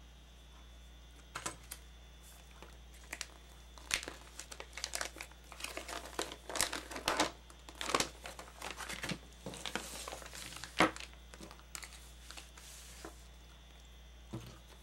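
Crinkling and rustling of a toy blind-bag's foil packet and its folded paper instruction sheet being handled and unfolded, in irregular crackles that are busiest in the middle.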